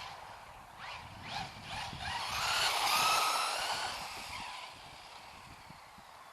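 FTX Vantage electric RC car running on a 2S battery, its motor whining in rising and falling sweeps as it speeds up and slows, loudest about three seconds in, then fading as it drives away.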